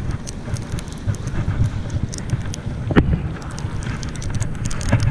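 Wind buffeting the camera microphone in a steady low rumble, with scattered small clicks and one sharper knock about three seconds in.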